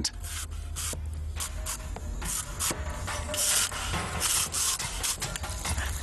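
Skin being scraped off a lotus root: repeated short rasping strokes, roughly two a second, at an uneven pace.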